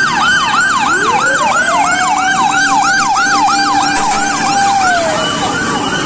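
Fire truck sirens. A fast yelp sweeps up and down about three times a second, and about a second in a second siren winds up to a steady wail. The wail falls away about five seconds in.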